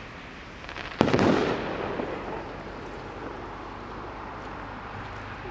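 A firework going off: a sharp bang about a second in, with a second crack right after it, then a hissing, crackling tail that fades over about two seconds.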